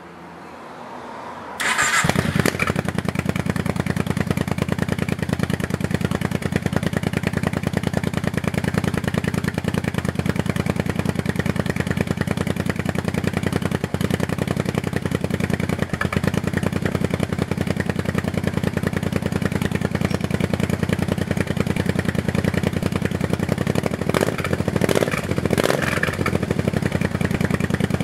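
Kawasaki KFX700 quad's V-twin engine cranked over with a rising whine and catching about a second and a half in, then idling steadily. It is the first start after its carburetors were cleaned of grit blocking the emulsion tubes.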